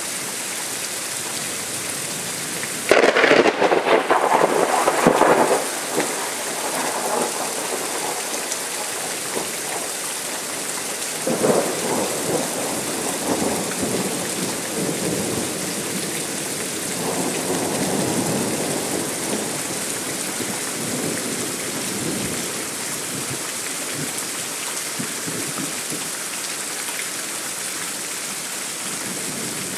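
Thunderstorm: steady rain hiss with a sudden loud clap of thunder about three seconds in that lasts a couple of seconds, then two softer, longer rolls of thunder later on.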